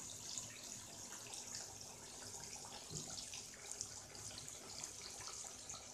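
Fish pieces deep-frying in hot oil in a kadai: a steady high sizzle with many small crackles.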